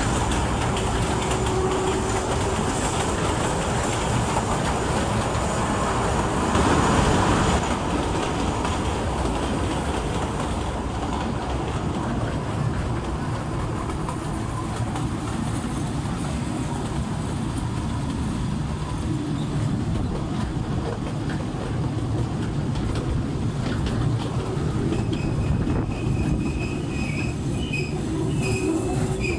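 Kurobe Gorge Railway narrow-gauge trolley train heard from its open-sided passenger car: a steady rumble and clatter of the wheels on the rails. It gets louder for about a second some seven seconds in, and short high wheel squeals come in near the end.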